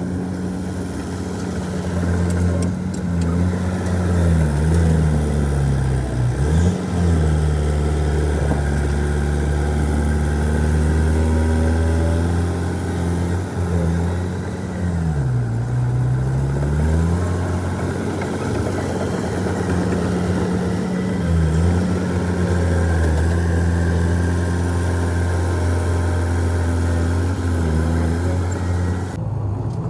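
Heavy diesel earthmoving machinery engine running steadily, its speed dipping and recovering several times, with one longer dip about halfway through.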